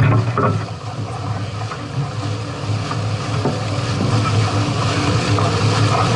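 Steady wind noise on the microphone with water sounds, aboard a sailing catamaran under way.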